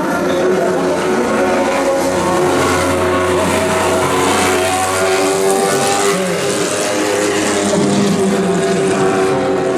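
Engine of a vintage formula racing car running at a steady, fairly high idle, its buzzing note holding an even pitch without revving up.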